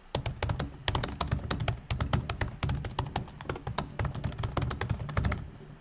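Typing on a computer keyboard: a quick, uneven run of key clicks that stops shortly before the end.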